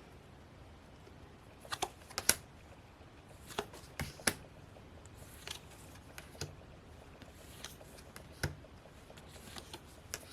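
Photo cards being handled and set down one at a time: a scattered series of light, sharp taps and flicks of card stock, about eight of them with quiet gaps between.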